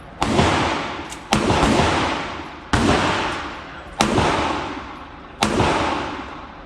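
Ported Glock 43X 9mm pistol fired five times at a slow, even pace, about one shot every second and a third, each shot ringing out in a long indoor echo.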